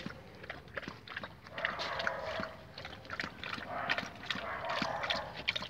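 A stray dog feeding at a bowl, with quick irregular clicks and wet mouth noises of eating.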